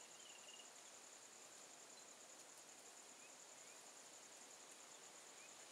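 Near silence in forest, with a faint steady high-pitched insect trill.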